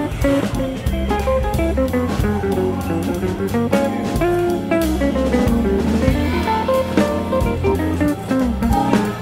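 Instrumental background music led by guitar, with bass and drums keeping a steady beat.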